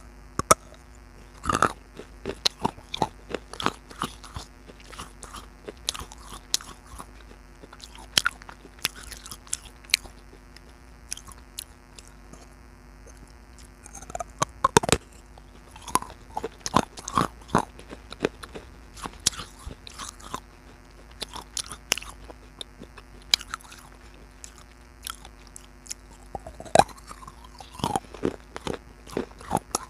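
A person biting and chewing pieces of baked clay pot close to the microphone: sharp, irregular crunches coming in clusters with short pauses between bites.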